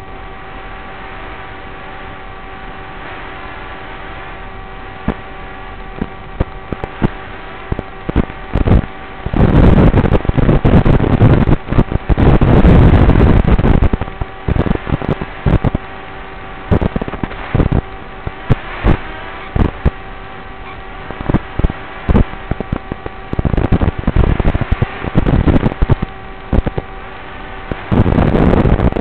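Onboard audio from a Walkera Rodeo 110 FPV quadcopter's camera link: a steady electrical hum with a few fixed tones, broken from about a third of the way in by loud, distorted crackling bursts that come and go, the longest lasting several seconds.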